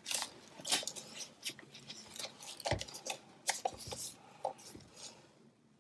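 Brown packing tape being handled and stuck over a small cardboard piece: scattered rustles, crinkles and light taps, the strongest a little past the middle.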